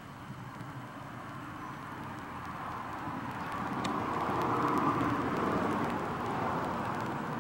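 A car passing on the road: engine and tyre noise swells, is loudest about five seconds in, then fades.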